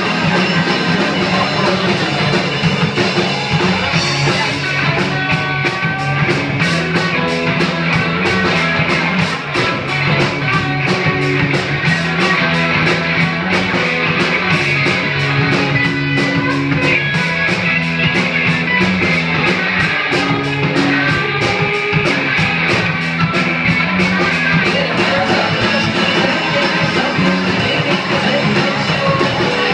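Live rock band playing: electric guitars over a drum kit. A steady cymbal beat comes in about four seconds in.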